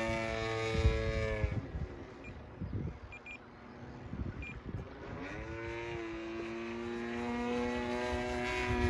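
Radio-controlled model aerobatic plane's motor and propeller droning at a steady pitch, dropping away about a second and a half in as the throttle comes back. About five seconds in it rises again in pitch as the power comes on, then holds steady.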